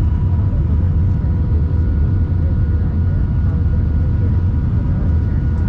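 Cabin noise inside an Airbus A320-200 on final approach with the flaps out: a steady, loud, low rumble of airflow and engines, with a few faint steady whining tones above it.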